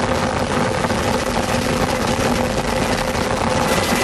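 Air Force rescue helicopter hovering, its engines and rotor heard from aboard as a steady, dense noise with a low, even hum.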